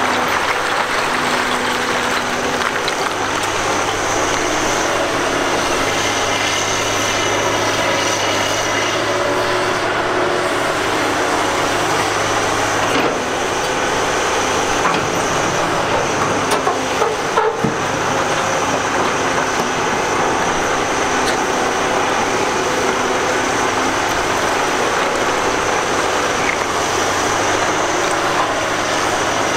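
Heavy diesel earthmoving machinery working at a rock crushing site: a Cat 245B excavator moving broken rock with a crusher running, a steady dense din with a constant low hum and a high whine. A few sharp knocks of rock come about halfway through.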